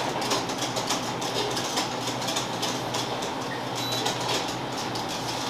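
Workshop kitchen background: a steady low machine hum under a constant run of quick light clicks and clatter.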